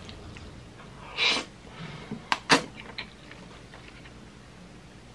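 A person eating spicy instant ramen noodles from chopsticks: one short slurp about a second in, then two sharp clicks a little after two seconds.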